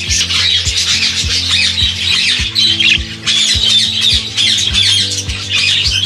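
A flock of budgerigars chattering and squawking continuously with quick, warbling calls. Background music with a steady beat plays under it.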